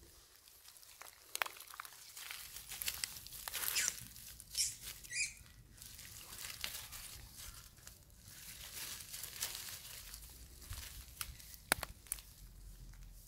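Dry leaf litter and twigs rustling and crinkling as a long-tailed macaque forages on the ground, with a few sharp clicks. A few short, high squeaks come about four to five seconds in.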